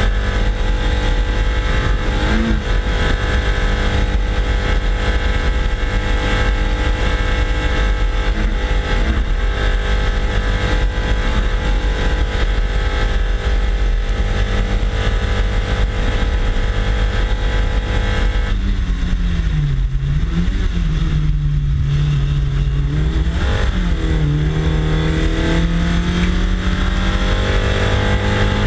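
Race car engine running at high, steady revs, heard close from a bumper-mounted microphone with heavy wind and road rumble. A little past halfway the revs drop and dip twice, then climb steadily toward the end as the car accelerates again.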